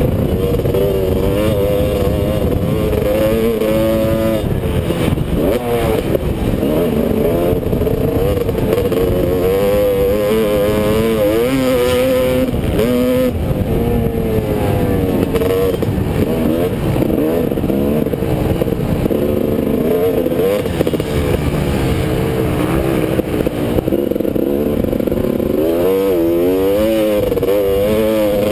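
Motocross bike engine revving hard, its pitch rising and falling continually as the rider accelerates, shifts and backs off through the track, heard close-up from the bike with rough rushing noise underneath.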